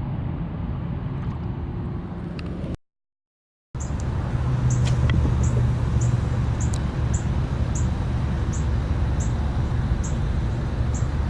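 Wind buffeting the microphone, a heavy uneven low rumble. It drops out briefly about three seconds in; after that, faint sharp ticks come about twice a second under the wind.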